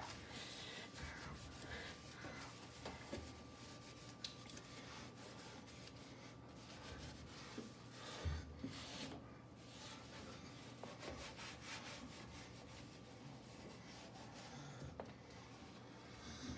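Sponge with soapy water scrubbing the enamel top of a gas stove, heard as faint, irregular rubbing strokes. A soft thump comes about eight seconds in.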